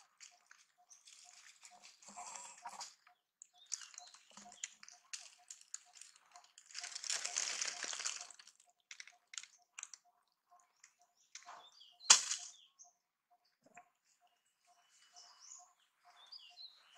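Dry leaves and twigs rustling and crackling in short irregular bursts as monkeys move about on the ground, with one sharp click about twelve seconds in that is the loudest sound.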